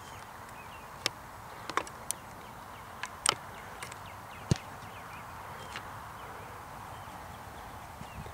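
An American football kicked off the ground for a field goal: a few sharp taps of the approach, the loudest about three seconds in, then the thump of the kicking foot striking the ball about four and a half seconds in.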